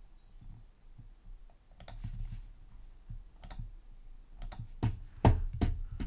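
Computer mouse clicking, about six or seven separate irregular clicks. Most fall in the second half, the loudest about five seconds in.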